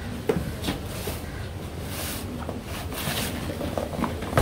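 Cardboard drone box being opened and handled: scattered light taps and clicks with a few brief scraping, sliding rustles as the lid and inner flaps come open, over a steady low rumble.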